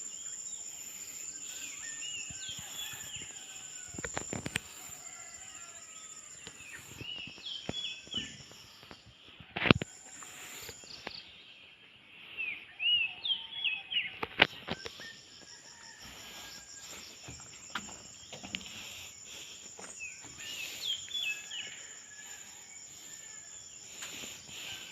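Outdoor rural ambience: birds chirping in short bursts over a steady high insect drone, which stops for several seconds midway and then resumes. A few sharp knocks are heard, the loudest about ten seconds in.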